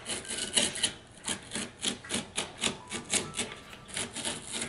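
X-Acto craft knife sawing through the old carpet-like fabric covering a cat tree, in quick, even back-and-forth strokes, about four or five a second.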